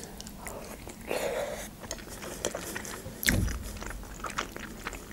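A person biting into a boiled khinkali dumpling and chewing it, with small wet mouth clicks throughout. A single louder dull thump comes about three seconds in.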